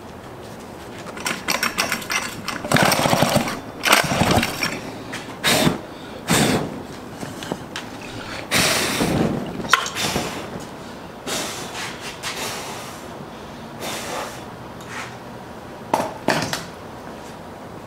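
Homelite ZIP two-stroke chainsaw being cranked over and over on its pull-start cord: about a dozen short, uneven bursts of the engine turning over without catching. The engine is flooding, with far too much fuel pouring in.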